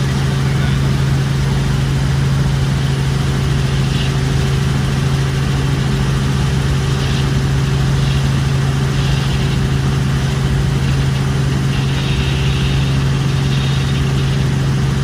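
Helicopter in flight heard from inside the cabin: a loud, steady drone of engine and rotors with a strong low hum.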